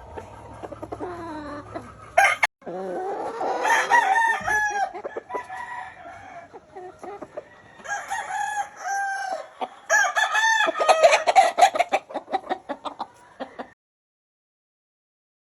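Several roosters crowing in turn, long calls that rise and then fall, amid clucking from other chickens. The sound cuts out abruptly near the end.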